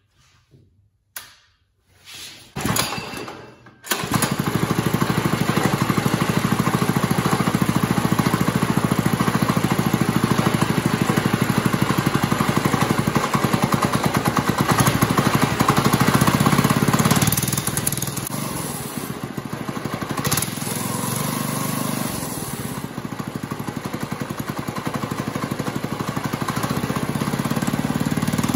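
Small 79cc 3-horsepower single-cylinder OHV go-kart engine being recoil-started: a few short sounds in the first seconds, then it catches about four seconds in and runs steadily. It runs faster until a little past halfway, then drops to a lower speed and slowly picks up again near the end.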